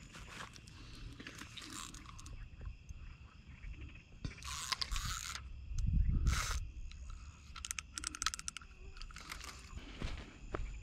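Fishing reel clicking and handling noise while a hooked carp is reeled in, with a few louder rustling bursts about four and six seconds in, over a low rumble.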